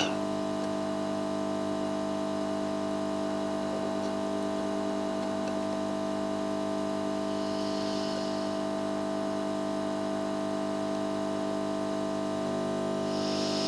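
Steady electrical mains hum made of several fixed tones, holding an even level, with faint brief hiss twice.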